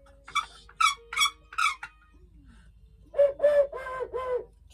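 Bird-call sound effect: four short, high calls in quick succession, then after a pause four lower, pitched calls in a quick run.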